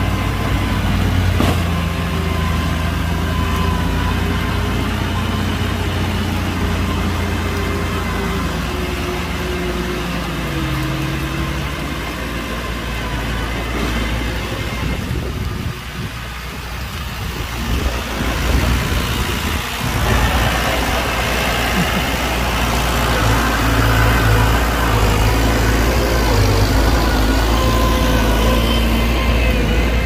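Heavy diesel engine of earth-moving machinery running, its revs shifting several times. It drops briefly about halfway through, then runs louder near the end.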